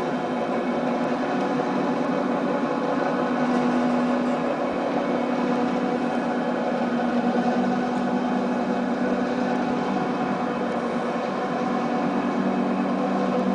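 Engine of the lift carrying the camera running steadily: a continuous low mechanical drone with a slight change in pitch partway through.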